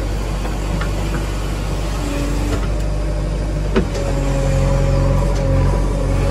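JCB 3DX backhoe loader's diesel engine running steadily while the backhoe digs. There is a single sharp knock a little past the middle, then the engine note gets a little louder and a steady whine comes in.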